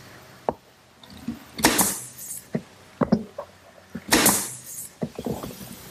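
Pneumatic brad nailer driving brads into plywood. Two shots, about one and a half and four seconds in, are each a sharp crack with a short hiss of air, and there are lighter clicks and knocks between them.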